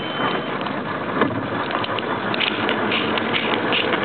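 Bass boat running fast across the water: a steady rush of wind and water with rapid rattling and clicking of gear on the deck, thickening in the second half.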